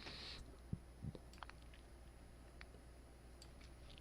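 Near silence with a few faint, short computer mouse clicks spread through it, and two soft low thumps about a second in.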